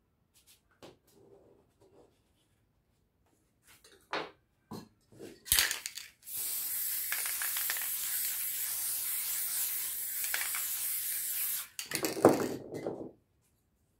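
Aerosol spray paint can spraying one steady hiss lasting about five seconds. A few small clicks and knocks come before it, and a cluster of louder knocks follows right after it stops.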